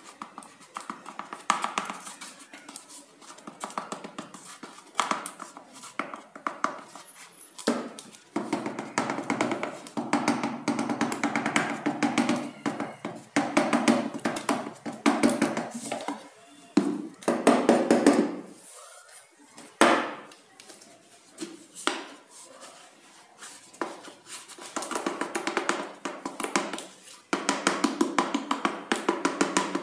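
Small plastic toner bottle knocked and tapped against an HP 88A-type laser toner cartridge while toner is poured into its hopper. Runs of rapid tapping with scattered single knocks.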